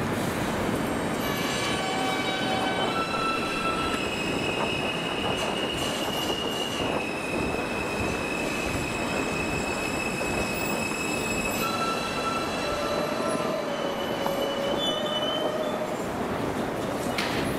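City street ambience: a steady wash of traffic noise with long, high-pitched metallic squeals that hold and shift in pitch for several seconds, then a lower squeal later on. A sharp click comes near the end.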